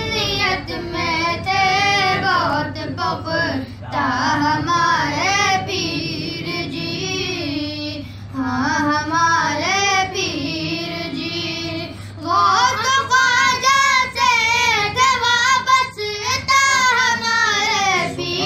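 Urdu devotional manqabat sung by a voice in long, bending, ornamented phrases, with short pauses about every four seconds.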